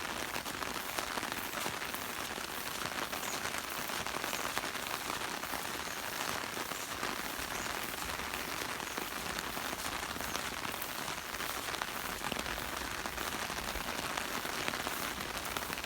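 Steady rain falling and pattering on surfaces, the dense hiss of many drops, as the tail end of a thunderstorm keeps raining.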